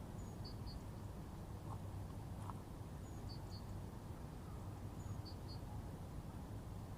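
Faint outdoor nature ambience: a small bird repeats a short high call, a thin note followed by two quick chirps, three times about every two seconds, over a steady low rumble.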